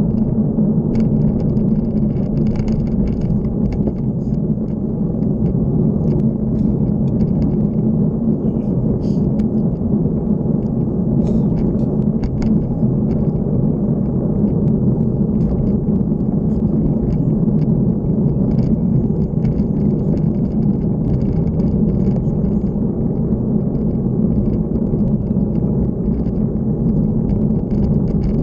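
Steady low rumble of wind and running noise from a bike travelling along a road, with faint scattered ticks above it.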